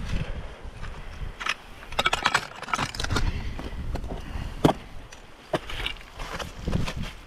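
Steel ice-tool picks and climbing gear clicking and scraping on rock, a cluster of clicks about two to three seconds in and a sharp single click a little past the middle, over wind buffeting the microphone.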